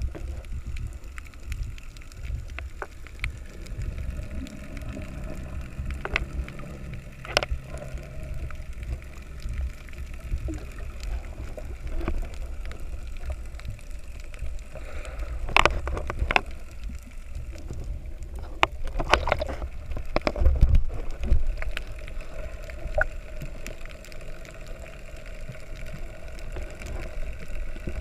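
Muffled underwater sound picked up by an action camera in its waterproof housing: a low rumble of water moving around the case, with scattered sharp clicks and knocks that cluster about halfway through. A faint steady hum runs for a few seconds early on.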